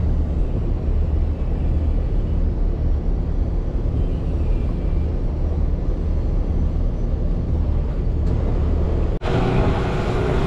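Hangkai 12 hp outboard motor running at low speed, a steady low rumble. About nine seconds in the sound cuts off abruptly to the outboard running faster, with a higher steady hum and water rushing past the hull.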